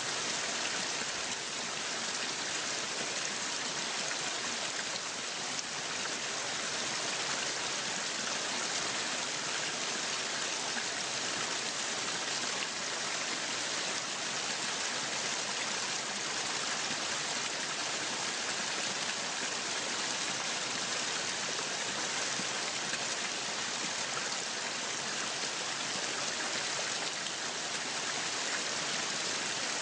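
Waterfall: water falling and splashing without a break, a steady hiss with most of its sound in the highs.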